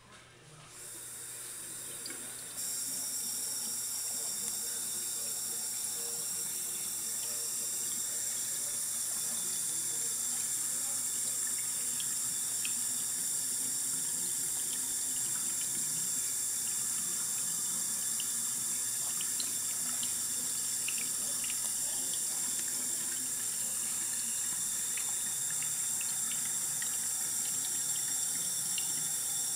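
Bathroom sink faucet turned on and left running in a steady stream, opened further about two and a half seconds in.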